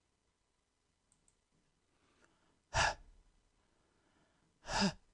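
A voice pronouncing the breathy consonant /h/ twice, two short puffs of breath about two seconds apart, the second catching a brief bit of voice at its end.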